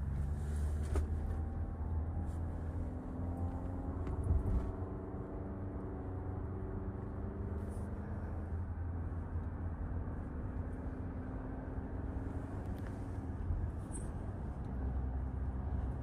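A 2024 Toyota RAV4 Limited driving on the road: a steady low rumble, with a humming tone that drifts slightly up and down over the first half and a few light knocks.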